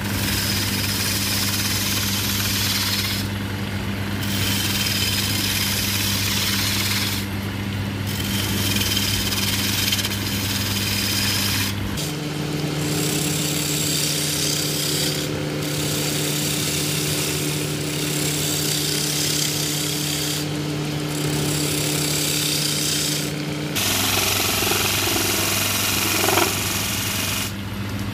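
Wood lathe running with a steady motor hum while a hand-held turning chisel cuts a spinning wooden mortar blank, a dense scraping hiss of wood being shaved away. The cutting stops for a moment several times as the tool is eased off, and the hum changes pitch twice.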